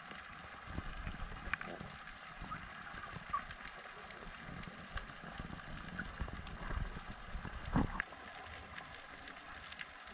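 Underwater ambience heard through a camera housing: a restless low rumble of moving water with scattered faint clicks, and a louder thump near 8 seconds.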